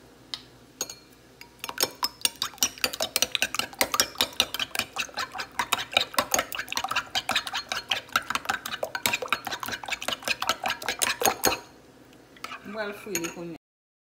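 Metal spoon beating two raw eggs in a glass bowl: a fast, even run of clinks of the spoon against the glass, starting about two seconds in and stopping abruptly a couple of seconds before the end.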